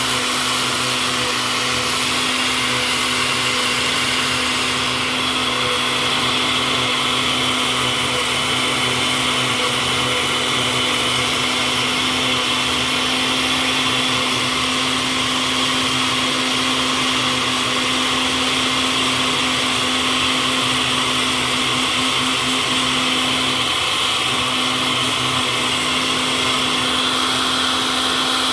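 Electric blender running steadily, grinding a mix of nuts and seeds, its motor holding one even pitch throughout.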